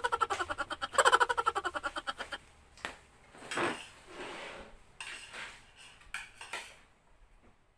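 Spoons and forks clinking against plates, bowls and a pot during a meal, after two bursts of rapid rattling squeaks at the start.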